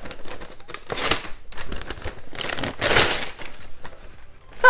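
Grey gift wrapping rustling and crinkling in several short bursts as a boxed Pop figurine is pulled out of it.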